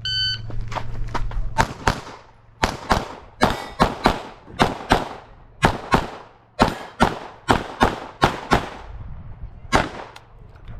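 Electronic shot timer beeps once at the start, then a 9mm Glock pistol fires a long string of shots, many in quick pairs, through the stage until near the end.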